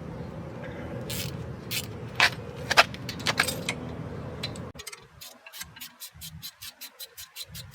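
Metal brake parts and tools clinking and rattling over a steady hum. Then, after an abrupt change, a quick even run of short scraping strokes, about five a second, like a brake part being brushed or sanded.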